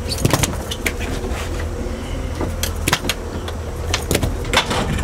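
Steady low hum of the trolling boat's engine, with irregular sharp slaps and knocks as a brown trout flops on the fiberglass deck.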